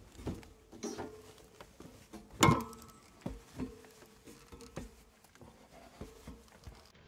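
Footsteps and scuffs on a steel ladder and rock during a climb down into a narrow lava tree mold: irregular knocks and scrapes, with one louder clank about two and a half seconds in.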